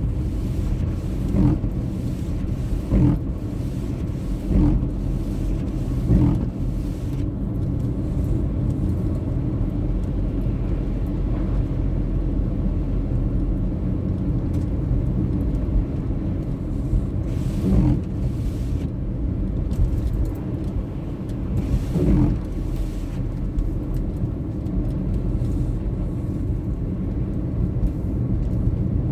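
Car driving, with a steady low road and engine rumble. Short thumps come about every second and a half for the first several seconds, then twice more later on.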